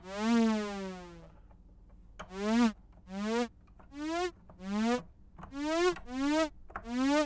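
Korg Volca Keys analog synthesizer played from a keyboard controller. One note whose pitch slides down over about a second, then seven short bright notes, each bending upward in pitch as it sounds.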